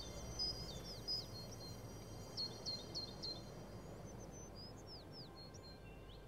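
Small birds chirping outdoors: scattered short, high chirps and quick downward-sliding notes, with a quick run of four notes about two and a half seconds in, over a faint low background hum.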